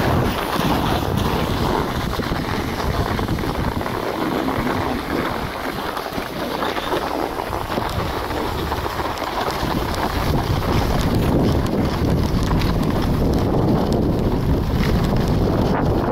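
Wind buffeting the microphone at speed on a run down a ski slope, with the steady hiss and scrape of edges sliding over packed snow.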